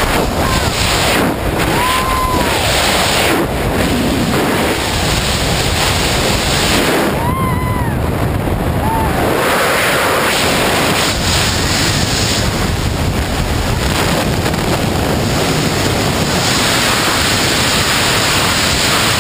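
Freefall wind rushing over a GoPro's microphone during a tandem skydive: a loud, steady noise.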